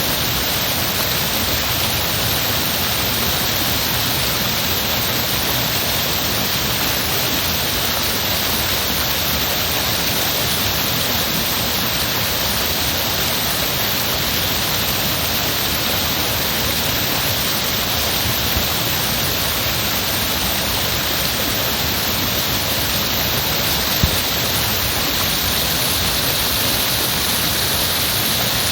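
Heavy running water: a steady, unbroken rush with no change over the whole stretch.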